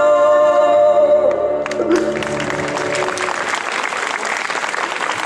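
The last held chord of a musical-theatre song rings on and fades out, and about two seconds in a live audience breaks into applause that continues.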